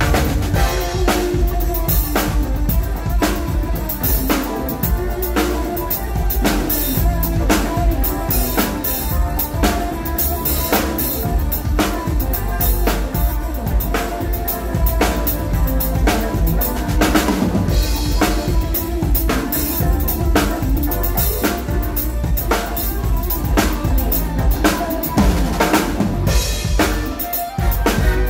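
A drum kit played close up in a steady driving beat: kick drum, snare and Paiste cymbals, with held notes of other instruments beneath the hits.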